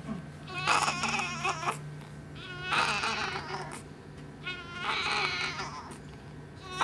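Newborn baby crying: three short, high-pitched wails of about a second each, with pauses between.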